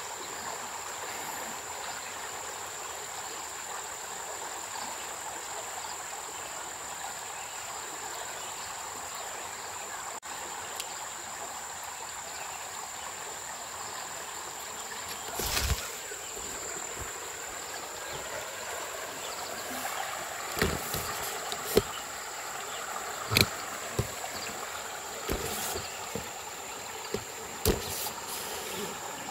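River water flowing and lapping, with a constant high-pitched insect drone over it. A few sharp knocks and splashes come in the second half.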